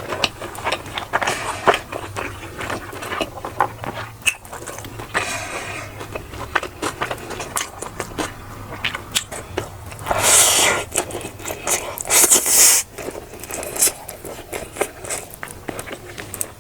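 Close-miked mukbang eating sounds: chewing and biting with many small wet clicks, and two louder noisy bursts about ten and twelve seconds in.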